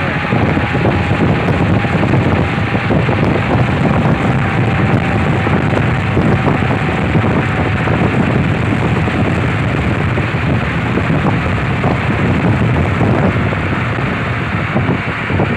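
Steady rush of wind and road noise in a car cabin as the car drives at highway speed.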